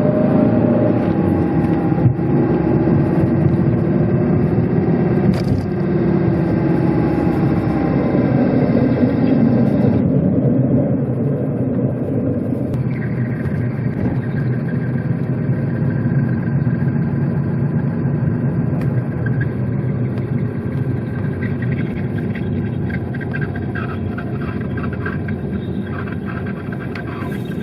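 Second-generation Fiat Panda 4x4 driving, with engine, drivetrain and road noise. The engine note rises and falls in the first part, then a steady high tone joins about halfway through. This is part of the abnormal running noise that the mechanic suspects comes from a worn propeller-shaft centre bearing.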